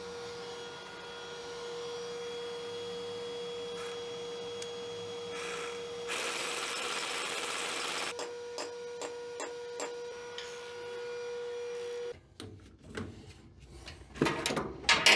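Shop vacuum running steadily with a constant whine, its hose set to suction. About six seconds in, a louder rushing noise comes in for about two seconds, followed by a few light clicks. The vacuum cuts off suddenly about twelve seconds in.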